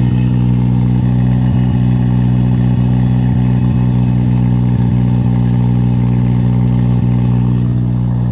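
Morbark wood chipper's flat-four engine running at a steady speed, a loud, even drone with no change in pitch.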